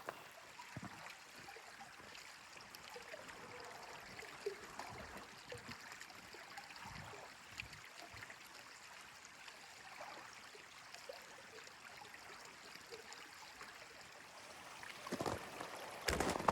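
Steady, faint wind rushing, with a few small knocks scattered through it. Near the end a run of louder strokes begins.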